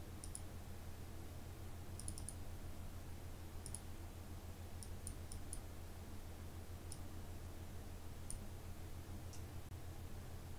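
Computer mouse clicking: about a dozen short, sharp clicks spread unevenly, some in quick runs of two or three. A steady low hum sits underneath.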